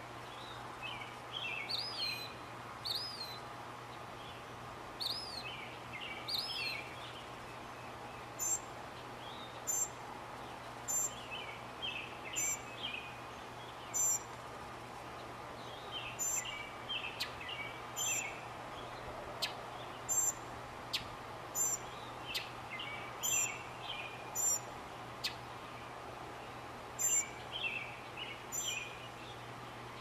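Mockingbird singing a string of short, varied chirping phrases. From about eight seconds in, a brief high note recurs roughly once a second between the lower phrases, over a faint steady background hum.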